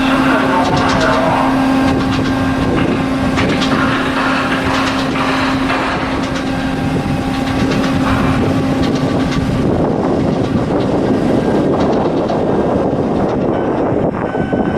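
Loud, steady machinery noise with a constant hum, giving way to a rougher rushing noise for the last few seconds.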